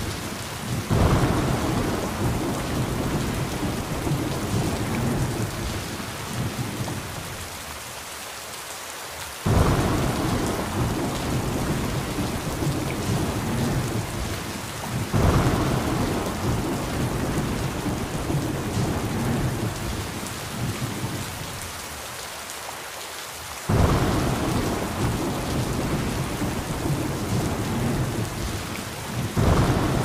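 Steady rain with thunder: a sudden rumbling crack about a second in, again about a third of the way through, midway, and twice near the end, each rolling and fading over several seconds while the rain hiss goes on underneath.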